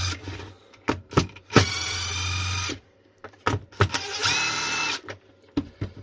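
Cordless drill-driver whining in two short runs as it backs out the Phillips screws of a mobility-scooter battery case, with sharp clicks of the bit and screws between runs.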